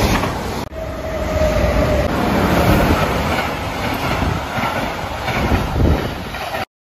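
Container freight train passing close by, its wagons clattering and rumbling over the rails. The sound cuts off suddenly near the end.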